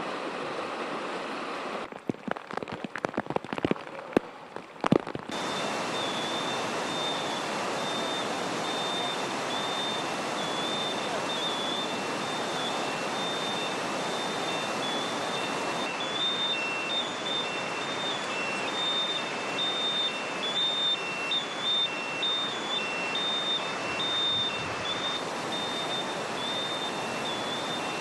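Steady rush of a swollen, muddy flood torrent. About two seconds in there is a short, uneven stretch with a few sharp knocks. From about five seconds on, a faint high electronic tone in short dashes sits over the water noise.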